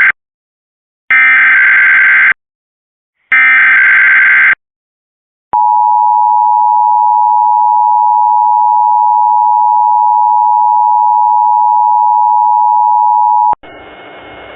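Emergency Alert System tornado warning tones: two one-second bursts of buzzing digital SAME header data, then the steady two-tone EAS attention signal held for about eight seconds. It cuts off into a faint hiss just before the spoken warning.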